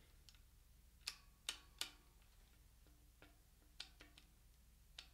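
Sharp little clicks from a Shimano BR-R451 caliper rim brake being worked into centre on the front fork: three close together about a second in, then several fainter, more spaced-out clicks.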